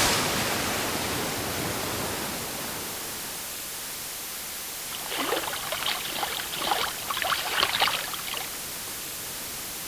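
A steady wash of noise fades down over the first few seconds, then small water splashes and lapping come in an irregular cluster from about five seconds in to about eight and a half, over a low steady hiss.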